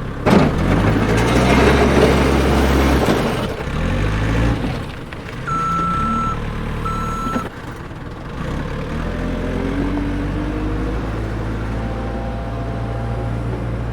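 Heavy truck or bulldozer engine running loudly with a strong hiss for the first few seconds, then two short reversing-alarm beeps about six seconds in. After that the engine note climbs steadily in pitch as it speeds up.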